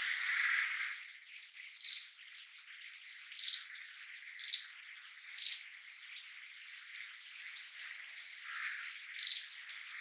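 Long-tailed tits giving their contact calls: many short, thin, very high notes, with several louder calls that slide downward, about five in all, spaced irregularly.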